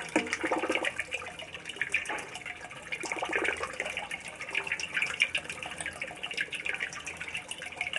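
Water splashing and churning around a small plastic-bottle boat whose electric motor drives a propeller through it.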